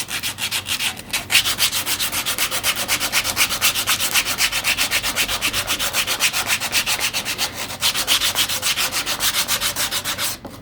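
Sandpaper folded in three, rubbed by hand over wood in quick back-and-forth strokes, several a second, with a couple of brief pauses; the strokes stop just before the end.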